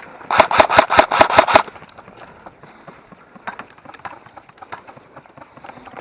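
Airsoft electric rifle firing on full auto, about ten shots a second, in a burst that stops about a second and a half in. After it only faint, scattered clicks.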